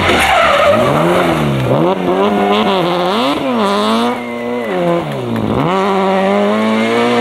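BMW 3 Series Compact (E36) rally car's engine being driven hard through a corner, revs climbing and dropping about five times with the gear changes and throttle lifts.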